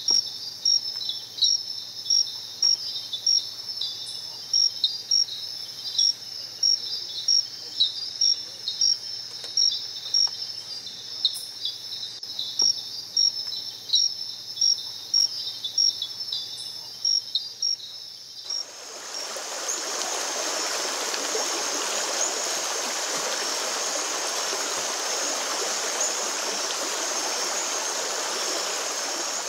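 Night insects chirping, about three high chirps every two seconds over a steady high drone. About two-thirds of the way through this gives way abruptly to the steady rush of a stream, with the insects faint above it.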